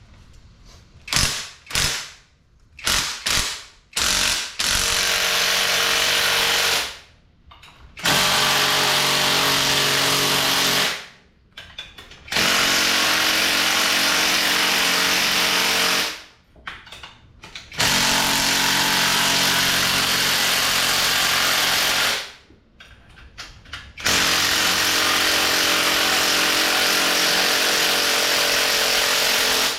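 A power tool running in a few short blips and then in five long steady runs of several seconds each, stopping and starting, as it backs off the screws of a strut spring compressor evenly to let the new front strut's coil spring loose.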